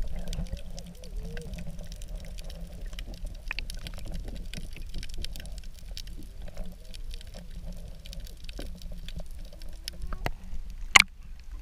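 Underwater sound heard through a submerged action camera: a steady, muffled low rumble of sea water with scattered sharp clicks and crackles, and one louder click about eleven seconds in.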